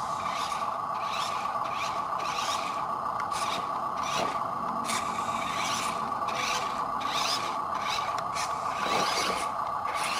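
Radio-controlled model truck's electric motor and gearbox whining steadily, with repeated short rasping scrapes about twice a second.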